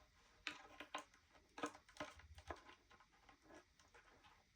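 A few faint clicks and scrapes of a wire being worked into the terminal of a plastic radio-link smoke alarm base, all in the first half.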